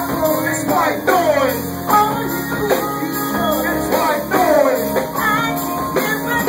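Live band music, an instrumental passage led by guitar, with falling pitch sweeps recurring about once a second over steady low notes.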